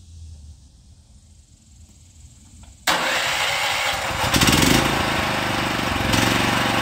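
Predator 8750 inverter generator's engine starting up suddenly about three seconds in and running steadily, getting louder about a second later as it speeds up.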